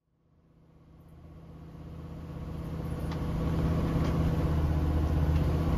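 Motorhome driving, its engine and road noise heard inside the cab as a steady low hum with a few light ticks. It fades in from silence over the first few seconds.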